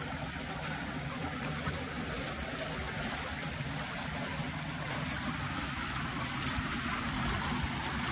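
Water gushing out of concrete outlets into a channel, churning into foam: a steady rushing noise that holds evenly throughout.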